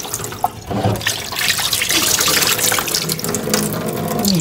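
Kitchen tap running into a stainless steel sink while a raw chicken is rinsed in a metal bowl under the stream, the water splashing off the bowl and into the sink, with a few light clicks of the bowl.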